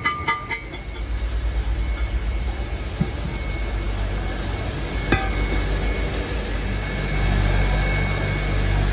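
A steel rod striking a cast axle housing in a few quick ringing clinks at the start, then a steady low mechanical rumble that grows towards the end, with a single sharp knock about five seconds in.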